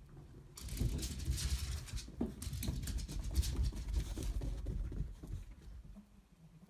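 Excited dogs crying and scrabbling about, a run of rustling and pattering from about half a second in that dies down near the end.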